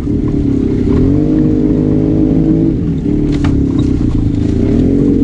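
Arctic Cat Wildcat Trail 700 side-by-side's engine running under throttle while riding: its pitch climbs and holds, drops as the throttle eases about three seconds in, then rises again near the end.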